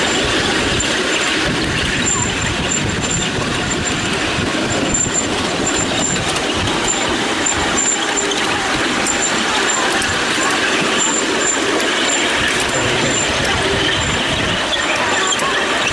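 Ride-on miniature railway train hauled by a miniature BR Class 37 locomotive running steadily along the track: a continuous running noise from the locomotive and the wheels on the rails.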